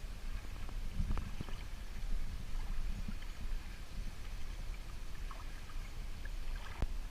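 Shallow seawater sloshing and splashing gently around legs as someone wades, over a steady low rumble.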